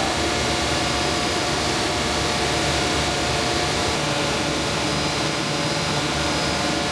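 Steady machine running noise, an even rushing whir with a few faint constant tones in it, holding the same level throughout.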